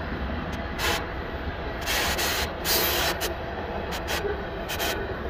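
Freight train cars, tank cars followed by covered hoppers, rolling past at close range: a steady low rumble of steel wheels on rail, broken by several short bursts of hiss.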